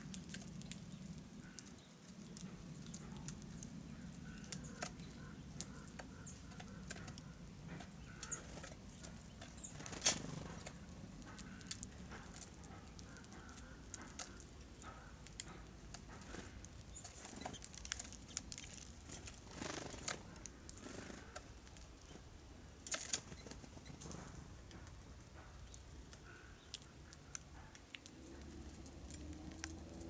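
Scattered light taps and clicks of small birds landing, hopping and pecking at hanging wire and metal bird feeders, with a few sharper knocks among them.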